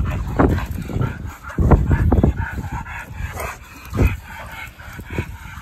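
A dog barking and yipping: a handful of short, sharp barks spread a second or two apart.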